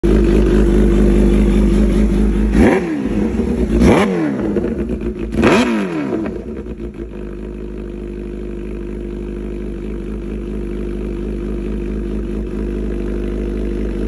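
Bimota Tesi H2's supercharged Kawasaki H2 inline-four idling through its Bimota slip-on exhaust. It is blipped three times, each a quick rise and fall in pitch a little over a second apart, then settles back to a steady idle.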